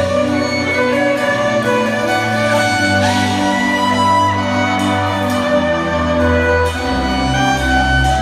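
Electric violin playing a melody live, amplified through the concert PA, over a backing track with a steady drum beat and heavy bass.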